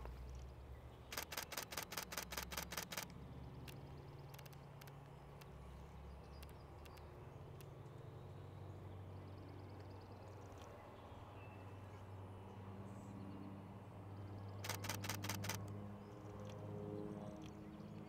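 Camera shutter firing in rapid bursts, about seven clicks a second: a two-second burst about a second in and a shorter one near the end, over a low steady background hum.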